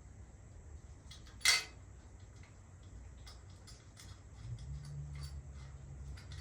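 Small metal parts and hardware clicking and clinking as they are handled and fitted on a lowrider bicycle, with one sharp metallic clack about a second and a half in.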